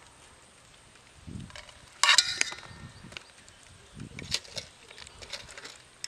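Metal strainer ladle and aluminium cookware clanking as parboiled raw-banana slices are lifted from the pot and tipped onto a plate. A loud clang about two seconds in rings briefly, followed by lighter clinks and soft knocks.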